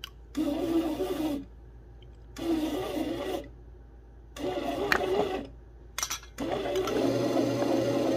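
Bread machine's motor running as its paddle kneads the dough, heard as a steady hum in short stretches of about a second, broken by abrupt gaps, then a longer stretch near the end. A few sharp clicks come just before the last stretch.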